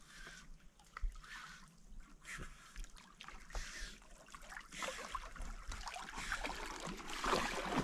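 A dog swimming and paddling through lake water while fetching a thrown bottle: light splashing and trickling that builds toward the end as it comes nearer.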